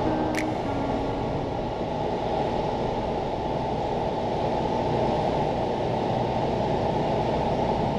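Steady road and engine noise of a car driving, a continuous low rumble.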